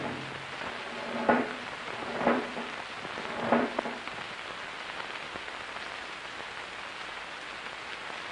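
Three sharp bangs about a second apart in the first four seconds, each with a short low ring, over a steady hiss; after that only the hiss remains.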